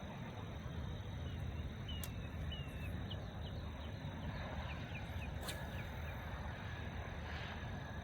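Outdoor pond ambience: a steady low rumble with a run of faint, short chirping calls from small animals, and a few sharp clicks.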